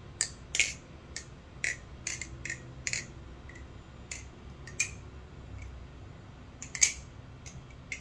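ArtSea Wave balisong (butterfly knife) being flipped: sharp metallic clicks and clacks as the blade bounces off the pins and the handles close, irregular and quick-fire for about three seconds, then sparser, with a few more near the end.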